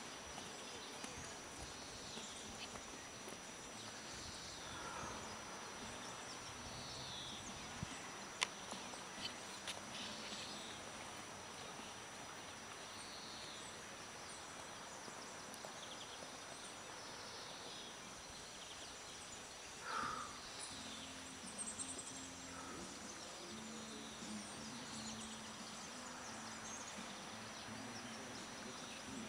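Faint outdoor background with scattered short bird chirps. A horse's hoofbeats on sand fade over the first few seconds as it moves away, and there is one sharp click about eight seconds in.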